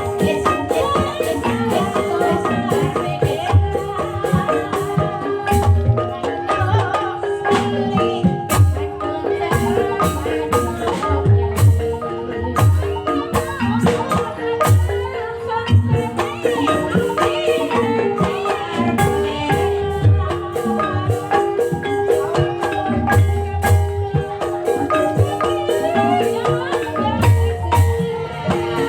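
Banyumasan gamelan music for an ebeg dance: mallet-struck keyed instruments play repeating interlocking note patterns over steady drum strokes, with a singer's voice above.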